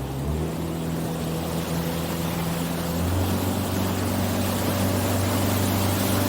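Motorboat engine running, its note stepping up about three seconds in as the boat picks up speed, with a rushing hiss of water and wind that grows louder.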